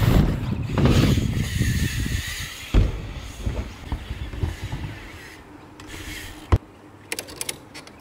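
BMX bike tyres rumbling over wooden ramps, with one hard landing thump about three seconds in; the rolling then fades, and a sharp click and a run of quick clicks come near the end.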